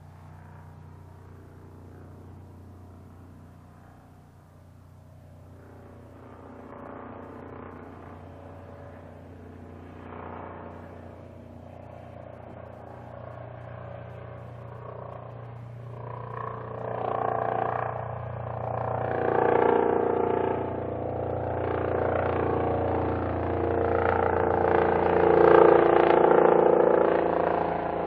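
Helicopter approaching from a distance, its engine and rotor sound growing steadily louder and peaking about 26 seconds in.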